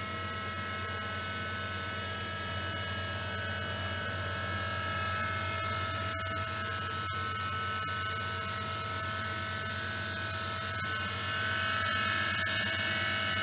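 KERN 1016 CNC milling machine's spindle running at about 2,880 rpm: a steady whine of several pitches over a low hum. It gets a little louder near the end.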